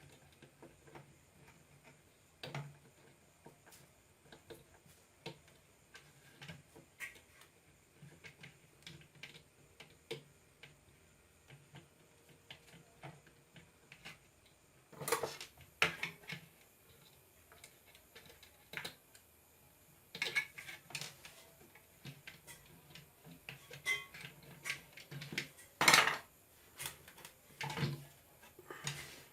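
Scattered clicks, taps and clinks of small metal and plastic parts being handled while the red wire is connected to a mixer grinder's thermostat switch. Sparse at first, with louder clattering knocks in the second half.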